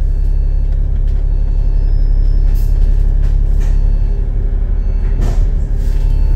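Double-decker bus cabin rumble: the engine and drivetrain run low and steady, with a brief knock about five seconds in.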